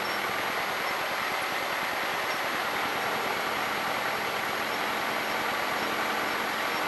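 Cessna 152's four-cylinder engine and propeller running steadily at low power, heard inside the cockpit as an even drone with hiss.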